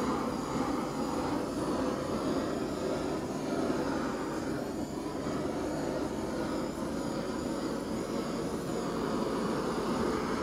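Small handheld torch flame running with a steady hiss as it is passed over wet acrylic pouring paint, heating the surface to bring silicone cells up.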